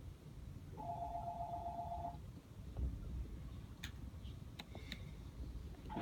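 An electronic telephone ringing with a warbling two-tone ring lasting just over a second, which starts again about five seconds later. A few sharp clicks fall between the rings, over a low steady rumble.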